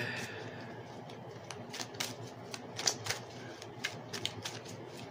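Oracle card deck being shuffled by hand: a run of light, irregular card clicks and flicks.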